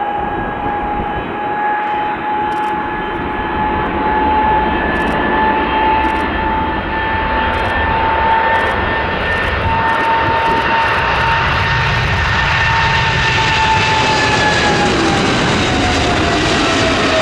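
Jet airliner engines running loud, a steady high whine over a broad roar, the whine dropping in pitch in the last few seconds as the aircraft passes.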